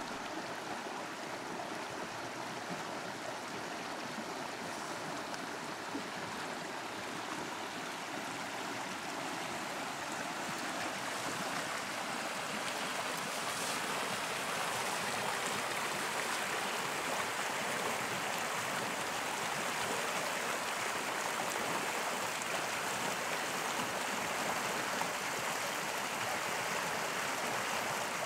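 River water running over shallows: a steady rushing of flowing water that grows a little louder about ten seconds in.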